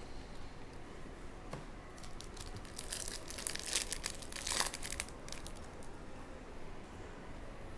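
Foil trading-card pack wrapper being torn open and crinkled, a dense crackling from about two and a half to five seconds in.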